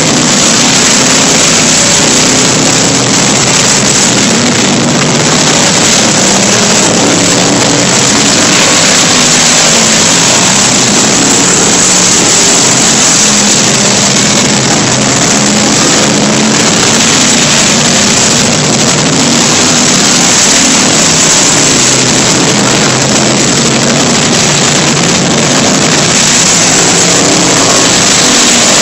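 Race car engines of a pack of cars racing around an oval track, loud and steady throughout.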